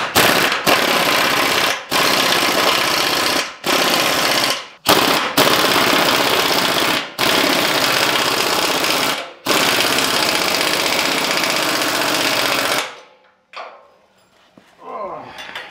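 Pneumatic impact wrench hammering in about seven long bursts with brief pauses, driving frame bolts tight to pull a bolt-in C-notch plate flush against a pickup's rear frame rail. It stops sharply near the end.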